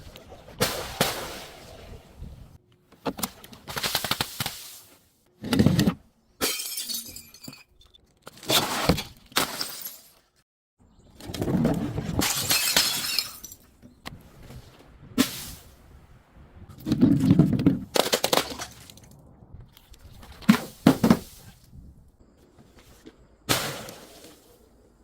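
Glass bottles breaking again and again: a string of separate shattering crashes, some with a heavy low thud, with glass crunching between them and a few short silent breaks.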